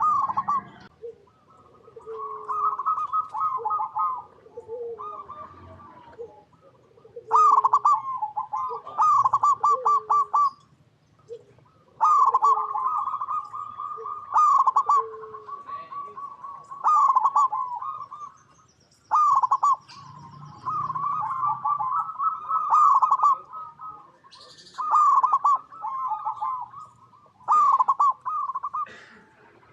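Zebra dove singing: repeated phrases of quick, rippling coos, each lasting from under a second to several seconds, with short gaps between them. Softer, lower coos fall in the gaps.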